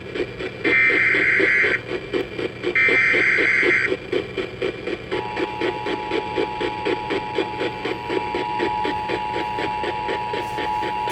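Emergency Alert System SAME header data bursts: two harsh one-second digital screeches, the last two of a set of three. About five seconds in they are followed by the steady two-tone EAS attention signal, which opens a flash flood warning. A quieter pulsing sound from the station's own audio runs underneath.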